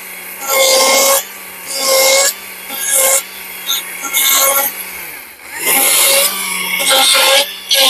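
Stihl MSA 140 C battery chainsaw with a carving bar cutting into wood in short strokes of under a second, about one a second, with a steady whir between cuts. The sound drops briefly about five seconds in before the cutting picks up again.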